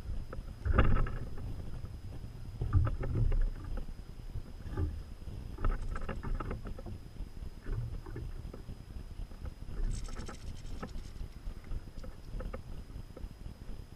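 Low wind rumble on the microphone with uneven knocks and taps every second or so, as a goldfinch clambers on a hanging plastic seed feeder close by, and a brief higher rustle about ten seconds in. A faint steady high whine sits underneath.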